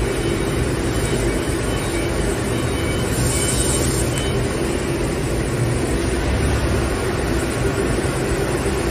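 Steady machinery hum and rumble from a running XT-K1530 uncoiling-and-straightening laser cutting line, with a brief hiss about three seconds in.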